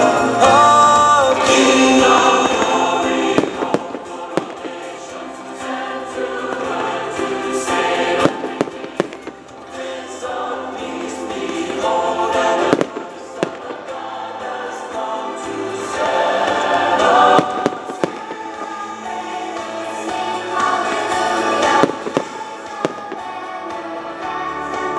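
Fireworks going off, with several sharp bangs and crackles at irregular intervals over choral music with singing.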